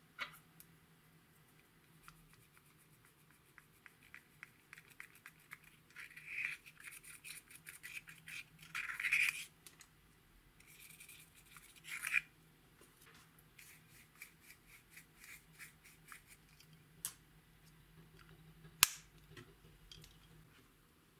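Pressed eyeshadow being scraped and crumbled out of its compact into a glass bowl: a fast run of fine scratching strokes, with louder scraping bursts about six, nine and twelve seconds in. A few single sharp clicks, the loudest near the end.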